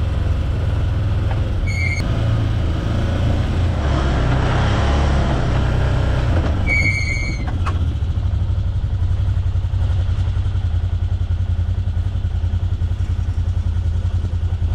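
Can-Am Defender side-by-side's engine running as it drives across a paddock, settling to an even idle in the second half. Two short high beeps sound about 2 and 7 seconds in.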